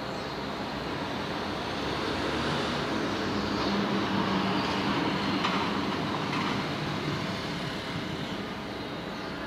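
Street traffic, with a large motor vehicle passing: its engine grows louder from about two seconds in, peaks mid-way and fades by about seven seconds.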